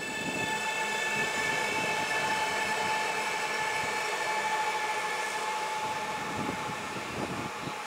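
48WE electric multiple unit running past and away along a station track: wheel and rolling noise with a steady high whine of several tones over it, loudest about two to four seconds in, then slowly fading.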